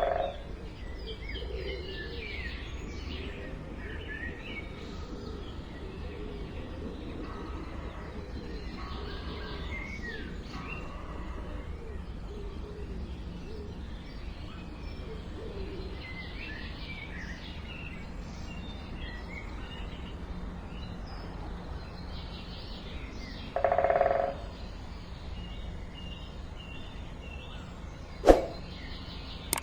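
Small birds chirping and calling in short scattered notes over a steady low background noise. A brief louder burst comes about twenty-four seconds in, and a sharp click near the end.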